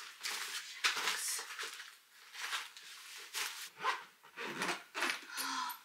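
Rustling and knocking from a bag and belongings being lifted, moved and rummaged through: a string of irregular, short scuffs and rustles.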